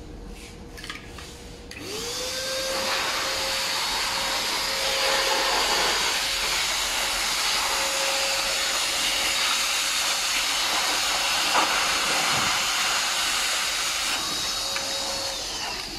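Electric air pump blowing air through a hose into a PVC inflatable horse. It starts with a rising whine about two seconds in, runs steadily, and drops away near the end.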